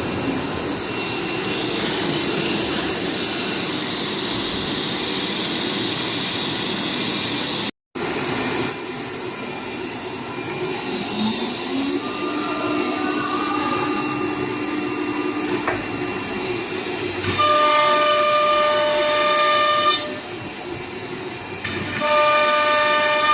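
CNC router running: a steady, noisy machining sound, then after a cut a rising whine and steady whining tones that start and stop in blocks as the machine moves.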